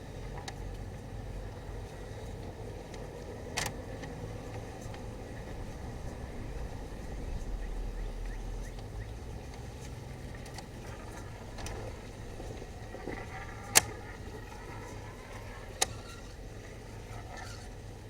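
A steady low mechanical rumble, with a few sharp clicks on top. The loudest click comes about three-quarters of the way through.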